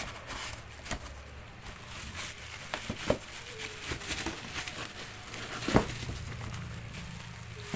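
Packaging crinkling and rustling while a motorcycle exhaust pipe is pulled out of its box and handled, with scattered light knocks and one sharper knock late on.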